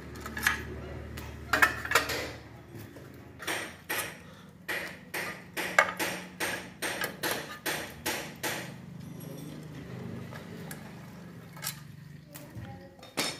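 Socket wrench working the 8 mm bolts on a Jawa motorcycle's engine side cover: a run of sharp metal clicks, about two a second, from a few seconds in until just past the middle, with a few more clicks near the start and end, over a steady low hum.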